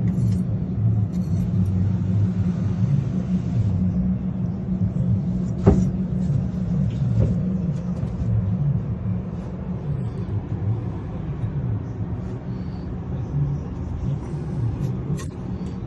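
Steady low mechanical rumble, like an engine or passing traffic, with a single sharp knock about six seconds in.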